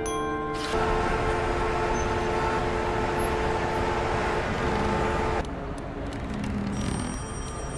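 Animated film soundtrack: a steady rushing noise with held musical notes under it, cutting off abruptly about five seconds in, after which a quieter bed with faint high held tones remains.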